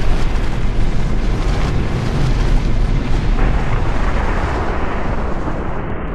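Cinematic rumble sound effect for an animated logo reveal: a deep, dense noisy rumble, fairly steady, with a hiss across the higher range.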